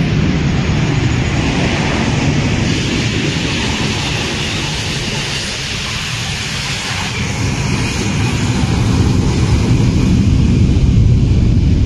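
Steady, loud roar of a DHL Boeing 757 cargo jet's engines as it rolls down the runway, swelling in the last few seconds.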